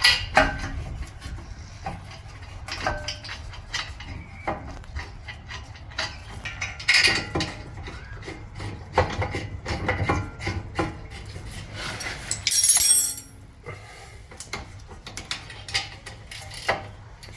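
Metal brake parts and hand tools clinking and knocking as a front brake caliper with new pads is fitted back over the rotor and its bolts are started. A brief harsh rattling burst comes about three-quarters of the way through.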